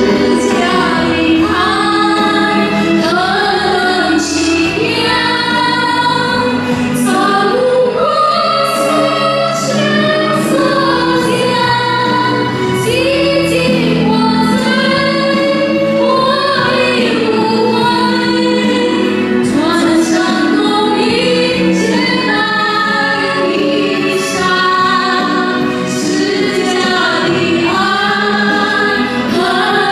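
Women singing a Mandarin Christian worship song over instrumental backing.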